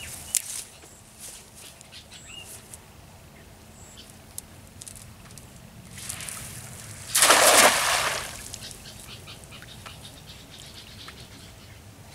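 A cast net landing spread on a pond's surface, one splashing hiss lasting about a second, some seven seconds in.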